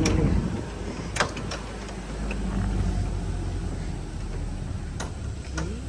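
Ford 4x4 pickup driving slowly over a rutted dirt track: a steady low engine hum with tyre and road noise. A sharp knock comes about a second in, and fainter clicks come near the end.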